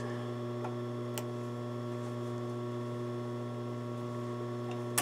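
Steady electrical hum, with a few faint snips of small scissors trimming loose thread ends.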